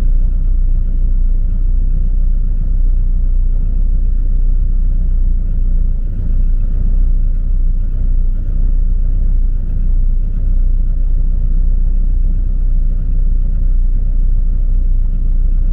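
A camper's engine idling steadily after a cold start in freezing weather, a constant low rumble. It has not smoothed out yet, with its oil still thick from the cold.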